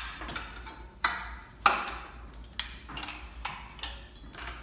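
Irregular clicks and clacks of a Juki MO-6700DA serger's covers and parts being handled and opened up by hand, about ten sharp knocks at uneven intervals.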